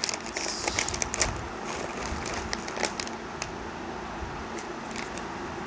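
Plastic snack packets crinkling and crackling as they are handled and sorted, with dense clusters of sharp crackles in the first second or so and around the middle, thinning out toward the end.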